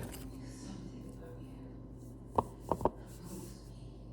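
Three quick sharp knocks of a hard object against a hard surface, about two and a half seconds in, over a low steady hum.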